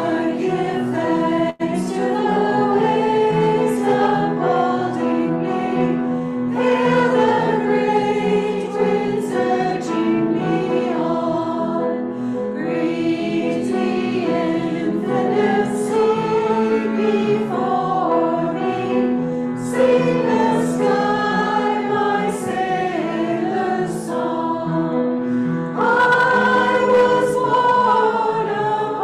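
Congregation singing a hymn together, many voices in held, legato lines over a steady low note.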